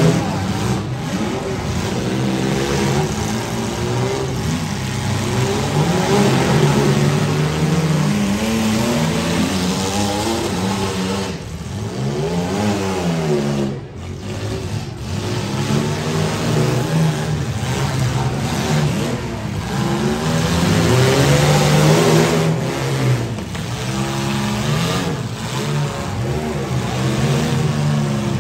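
Compact demolition-derby cars' engines revving hard and falling back again and again as the cars push and shove in the mud, with one long rev rising and falling about halfway through.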